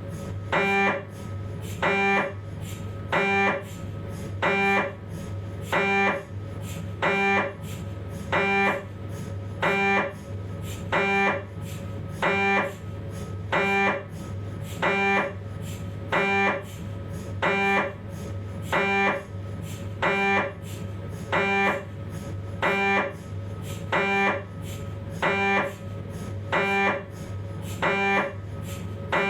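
Philips 1.5 T MRI scanner running a 3D T2-weighted spine sequence: its gradient coils give a short, loud buzzing tone about once every 1.2 seconds in an even rhythm, over a steady low hum.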